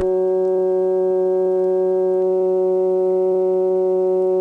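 Dial tone on a 1977 analog telephone line from an electromechanical exchange: a loud, steady tone of several pitches sounding together, holding without any break or cadence.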